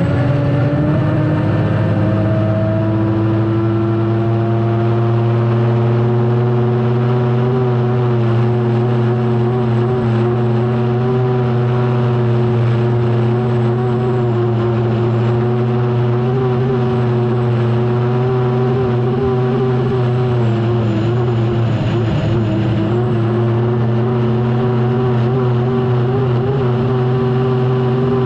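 Unlimited hydroplane's turbine engine running at racing power, heard onboard. The pitch rises a little over the first few seconds, then holds steady.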